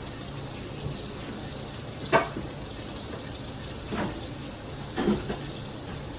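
Kitchen work sounds: a steady water-like hiss with three sharp clinks or knocks, the loudest about two seconds in and the others about two and three seconds later.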